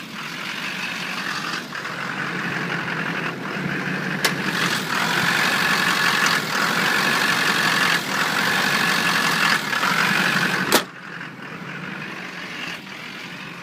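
2005 Duramax 6.6 L V8 turbodiesel idling roughly, the rough idle that was later traced to a failing fuel pressure regulator. The engine grows louder over the first several seconds, with a sharp click about four seconds in. A louder sharp click comes near the end, after which the engine sounds quieter.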